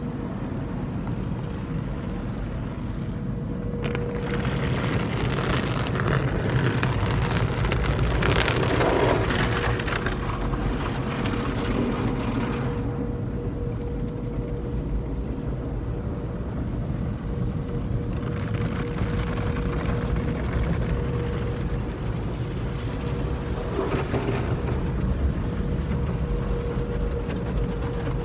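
AVW/Coleman Hanna car wash tunnel heard from inside the car's cabin: water and foam spraying and streaming over the windshield and windows, over a steady low rumble and a faint steady hum. The spray swells loudest a few seconds in for several seconds, then surges again twice later.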